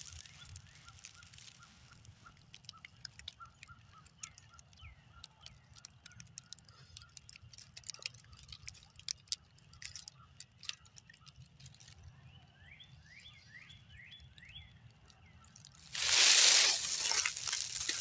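Footsteps crunching through dry fallen oak leaves near the end, the loudest sound. Before that it is quiet, with scattered faint clicks and small birds chirping: a quick run of short notes in the first few seconds, and a burst of falling chirps about two-thirds of the way through.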